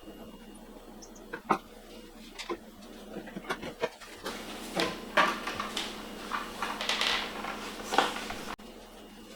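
A sheet of PVC pond liner being handled and worked into a wooden trunk: rustling and crinkling, with scattered sharp clicks and knocks, thickest in the second half.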